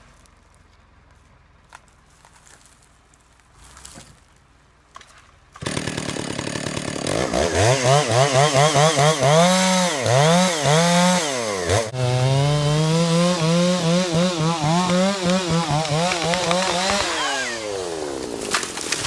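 Chainsaw starting about five seconds in, revved up and down in quick blips several times, then held at a steady high speed for about five seconds before slowing down near the end. A sudden loud knock comes right at the close.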